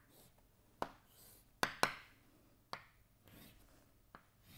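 Chalk on a blackboard as lines are drawn: several sharp taps where the chalk strikes the board, with faint scratchy strokes between them.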